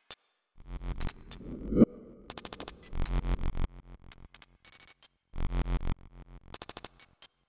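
Glitchy electronic music: rapid stuttering clicks and short bursts of deep pulsing bass, with a rising sweep that ends in a sharp hit about two seconds in.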